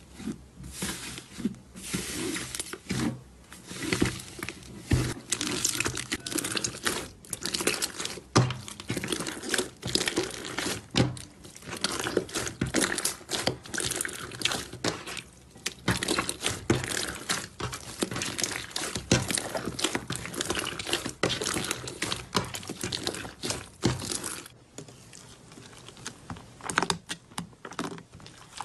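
Slime being pressed, squeezed and kneaded by hand: a dense, irregular run of wet crackles and pops. It becomes quieter and duller a few seconds before the end.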